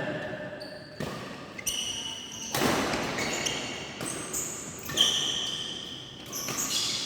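Badminton play on an indoor court, echoing in the hall: sharp racket-on-shuttlecock hits about a second in, near the middle and about five seconds in, with short high squeaks that fit shoes on the court floor.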